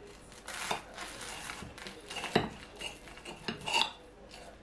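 Knife cutting through a toasted sandwich, the blade scraping and clicking against a ceramic plate, with a sharper knock about two and a half seconds in.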